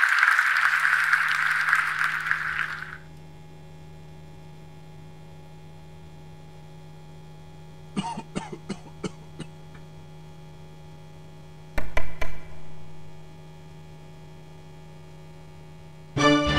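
A loud hiss of noise fading out over the first three seconds, then a steady low hum. About eight seconds in comes a quick run of short clicks, about twelve seconds in a loud short burst, and music starts just before the end.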